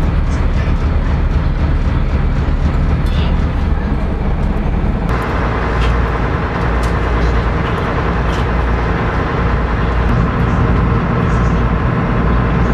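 A small passenger ferry's engine runs steadily under way, heard from inside the cabin as a loud, even drone. About five seconds in, a higher whine suddenly grows louder.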